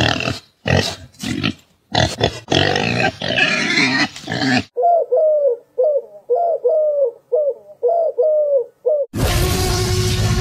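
Pig grunts in quick succession that run together into a longer, denser stretch about two seconds in. Then a dove coos about ten short falling notes, a little over two a second. Near the end a loud, rough noise with a steady low tone cuts in suddenly.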